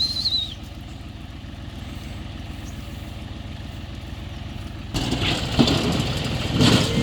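A John Deere tractor's diesel engine runs steadily at low speed. About five seconds in, the sound turns abruptly louder and rougher.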